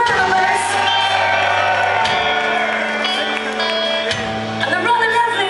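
Live rock band playing amplified electric guitars and bass. Full chords are struck about every two seconds and left to ring over a held bass note.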